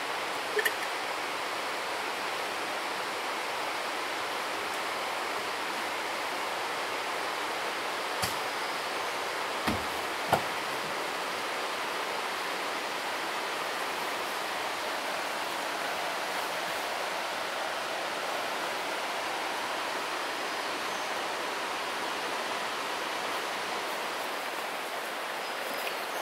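Steady, even rush of flowing water, like a nearby mountain river, with a few small knocks in the first half.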